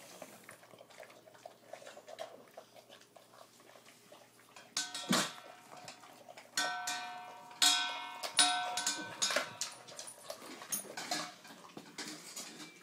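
Dogs eating raw chicken from stainless-steel bowls: small chewing and licking sounds, then from about five seconds in the metal bowl knocks and rings several times, the loudest clangs a little before the middle and just after it.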